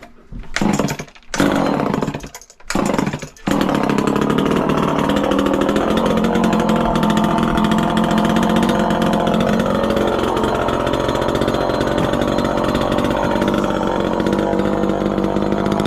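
Chainsaw engine firing in three short bursts, then running steadily at an even, high speed.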